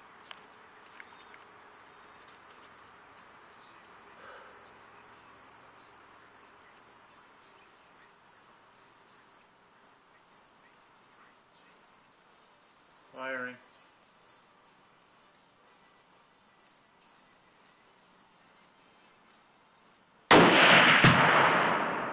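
Crickets chirring steadily, then about twenty seconds in a single very loud blast: a Thompson/Center Dimension .30-06 rifle shot with a half-pound Sure Shot exploding target going off 200 yards downrange, the report echoing and trailing off over about two seconds.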